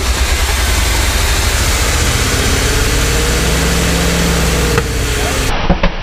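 Old bread truck's carbureted gasoline engine running with a steady low rumble, its pitch rising slowly and falling back about midway as it is revved.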